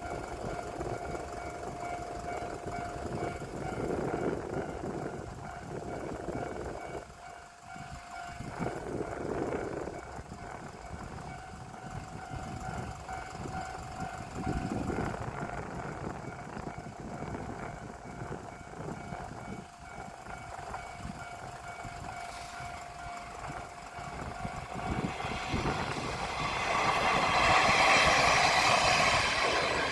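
A level-crossing warning bell rings with a steady ringing tone. Near the end a KiHa 32 single-car diesel railcar comes through the crossing, its engine and wheel noise swelling to the loudest point about 27 seconds in.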